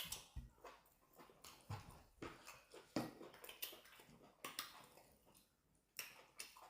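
Faint eating sounds: mouth-noise chewing and smacking with irregular small clicks.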